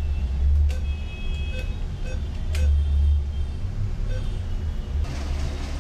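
ATM keypad buttons being pressed, each press giving a short beep: about five beeps over a few seconds, with a couple of sharp clicks, over a steady low rumble.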